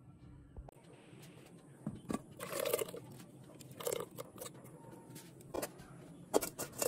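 A blender's low motor hum cuts off abruptly under a second in, followed by scattered knocks and clatters of metal cookware and a wire-mesh sieve being handled, the sharpest near the end.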